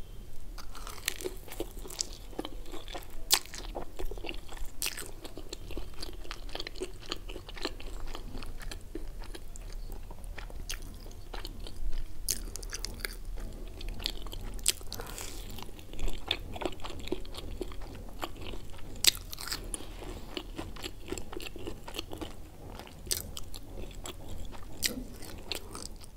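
Crunching and chewing of a crumb-coated fried cheese pizza stick close to a microphone, with many sharp crackles scattered throughout.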